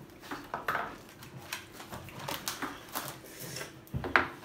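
Crinkling of a plastic-and-foil cookie wrapper and light clicks as Oreo cookies are pulled from the package and set down on a wooden table, with a sharper knock about four seconds in.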